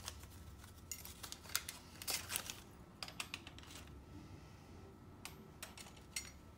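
Scattered light clicks and clinks of small metal parts being handled and set down, faint, with a cluster about two seconds in and a few more near the end.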